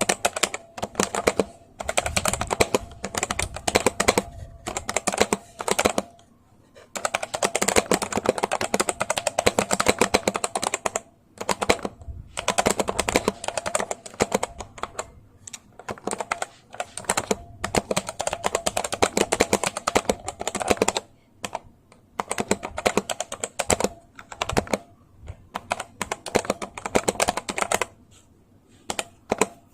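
Typing on a GSKB05 60% mechanical keyboard with Outemu brown tactile switches: rapid runs of key clicks and clacks in bursts of a few seconds, with short pauses between them.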